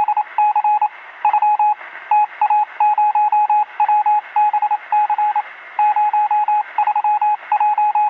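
Morse code–style beeping: one steady tone keyed on and off in irregular groups of short and longer pulses over a radio-like hiss.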